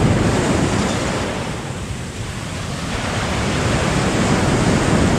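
Surf breaking and washing up the sand at the water's edge, a steady rush that eases about two seconds in and builds again.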